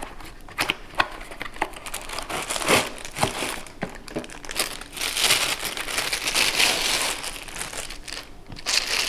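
Packaging crinkling and rustling, with scattered clicks, as a microphone pop filter is unboxed. The crinkling gets denser and louder about halfway through.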